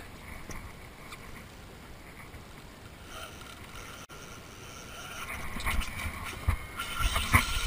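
A fishing reel being cranked during a fight with a tarpon, with wind and handling noise on a body-worn camera. The noise grows louder about five seconds in, with irregular deep knocks and bumps.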